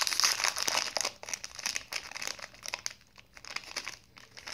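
A snack-bar wrapper crinkling as it is worked open by hand, dense crackling in the first second, then thinner and fainter.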